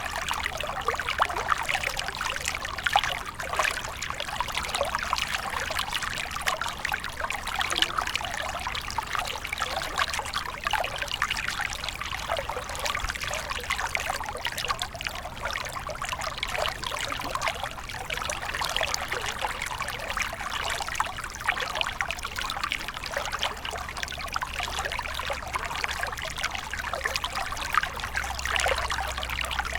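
Flowing water trickling and splashing steadily, a dense run of small splashes with no pause.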